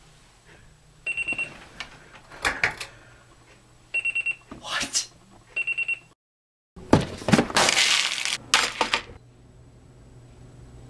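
Digital alarm clock beeping in quick groups of four short beeps at one pitch, three groups in the first six seconds. After a brief gap, about two seconds of loud, noisy clatter follow, the loudest sound here.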